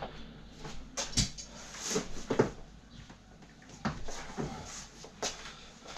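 Irregular clicks and knocks of small metal scrap parts from a fuse board being handled and set down, about one every second.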